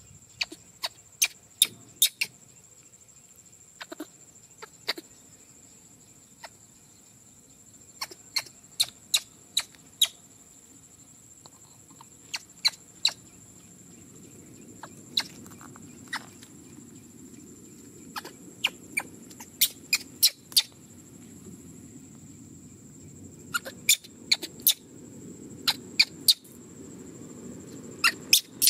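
Loud, sharp clicks and snaps in irregular quick clusters, close by, over a steady high-pitched drone. A low rustling grows louder from about halfway through.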